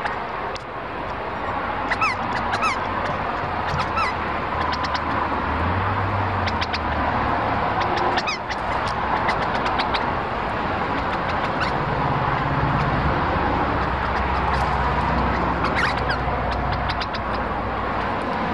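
Lorikeets and other parrots giving many short, sharp calls and chattering, over a steady low rumble.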